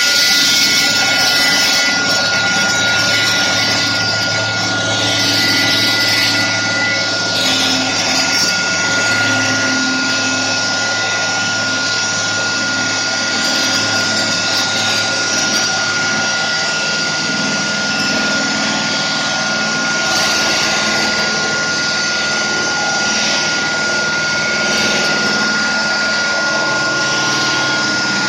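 Liomax 6x600 stone-cutting saw running steadily: a constant high whine over a loud hiss.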